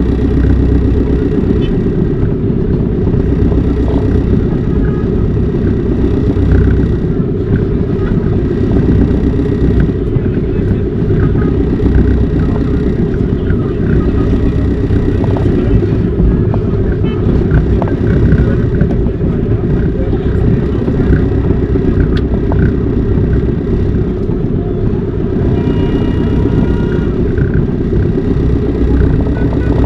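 Steady low rumble of a vehicle on the move, with no break or change.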